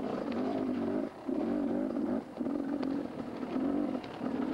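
Mini bike's small engine revving as it rides a bush trail, the throttle eased off briefly three times, with a few knocks and clatters from the ride.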